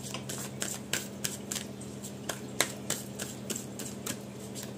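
Tarot cards being shuffled by hand: a quick, irregular run of sharp card clicks and snaps, the loudest about two and a half seconds in, over a steady low hum.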